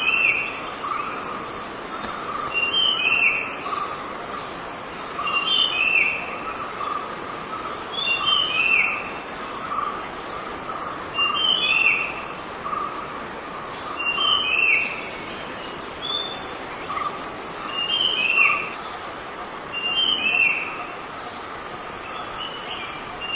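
A bird calling over and over, each phrase two or three quick falling notes, repeated about every three seconds over steady background noise.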